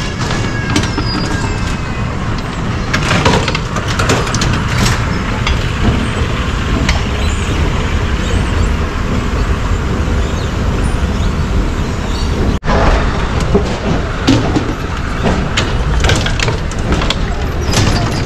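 Escalator running with a steady low rumble, with a few short clatters from a loaded shopping cart riding the cart escalator beside it.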